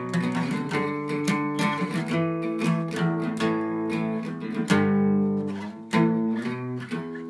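Acoustic guitar with a capo on the neck being strummed in a steady rhythm, one chord after another, with a louder chord ringing out a little past the middle.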